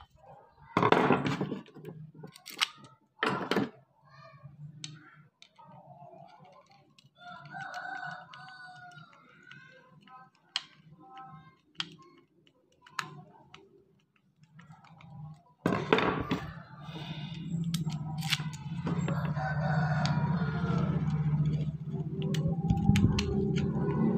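Screwdriver clicking, scraping and knocking against the housing of a wood router (trimmer) as the screws are worked, with two sharp knocks near the start. A rooster crows in the background, and in the last third a louder steady low hum sets in.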